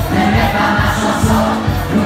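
Loud dance music with a steady beat and singing, a crowd's voices mixed in.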